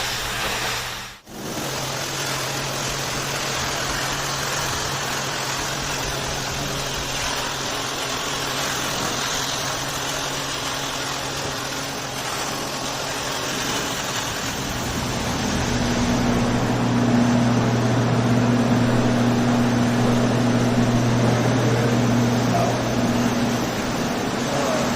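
A tile and grout cleaning machine running steadily: a motor hum over a rushing hiss of air. It cuts out briefly about a second in and gets louder past the halfway point.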